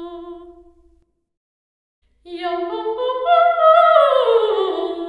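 A solo singing voice with vibrato, given the sound of the church by a convolution reverb made from its balloon-pop impulse response. A falling phrase ends and its reverb tail dies away about a second in. After a short silence, another falling phrase begins about two seconds in.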